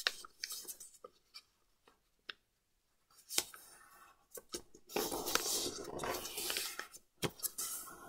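Sheet of paper being folded and pressed flat against a board by hand: soft scattered rustles and taps, then a couple of seconds of rubbing, sliding paper noise in the second half as the creases are smoothed.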